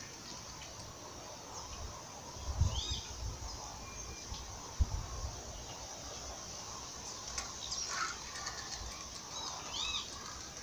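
Outdoor ambience with a bird giving a short rising-and-falling call twice, about three seconds in and near the end. A couple of low dull thumps, the loudest sounds, come around three and five seconds in.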